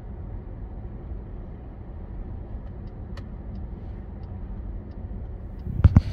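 Steady low road and engine noise of a car cruising at highway speed, heard from inside the car. Faint regular ticks come about three a second through the middle, and a voice starts right at the end.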